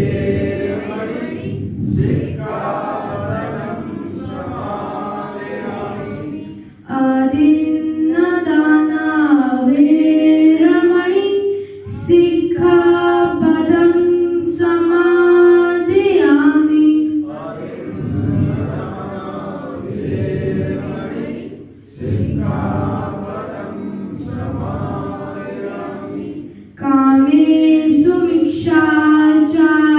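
Buddhist devotional chant sung by voices without instruments. About 7 s in, and again near the end, a single voice carries long, wavering melodic phrases.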